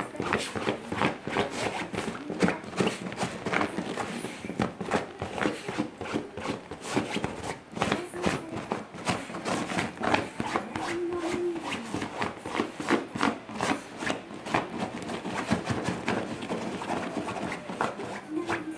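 Basenji digging at a fabric chair cover with its front paws: a continuous run of rapid scratching strokes on cloth, several a second.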